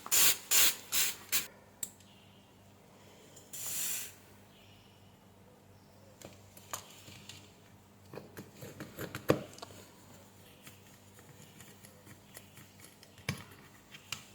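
Hot soldering iron tip wiped on a wet cleaning sponge in five quick hissing strokes, followed by one longer hiss about four seconds in; after that only faint taps and clicks.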